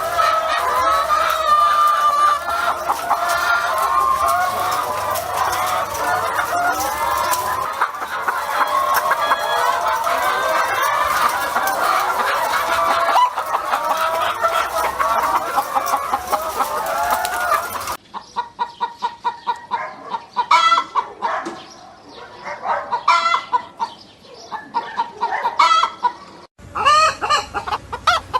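Domestic chickens clucking: a dense chorus of many hens calling over one another, then, after a sudden change about two-thirds of the way through, fewer birds giving separate, distinct clucks.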